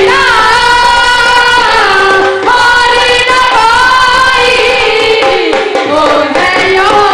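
Christian worship song: a singer holds long notes that slide between pitches, over instrumental backing.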